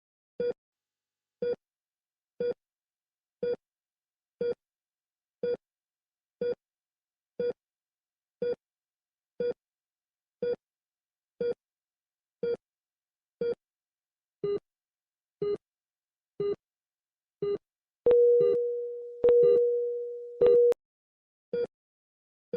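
Electronic patient-monitor beeps, one short pitched beep every second, the last few slightly lower in pitch. About eighteen seconds in, a louder, long steady alarm-like tone takes over, restarting twice, before the single beeps return.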